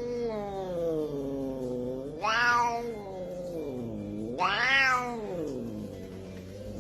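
A cat yowling: three long, drawn-out meows in a row, each rising and then sliding slowly down in pitch. A sharp click comes at the very end.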